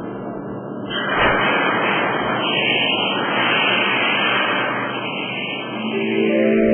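A steady rushing noise with no clear beat or pitch, swelling slightly about a second in. Synthesizer music with held tones fades in near the end.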